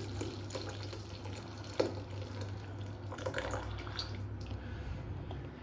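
Thick hot pudding mixture poured into a glass bowl, a soft, faint liquid pouring and splashing. There is a light click a little under two seconds in, over a low steady hum.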